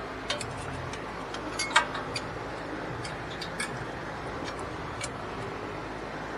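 Scattered light metallic clicks and taps of a starter heat shield being worked into place by hand, the loudest about two seconds in.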